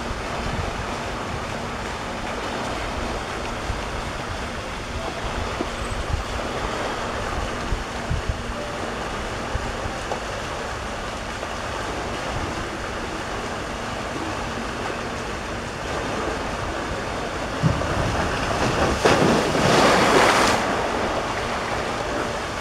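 Wind buffeting the microphone over a steady rush of water. About nineteen seconds in comes nearly two seconds of louder splashing from a person wading through waist-deep pool water.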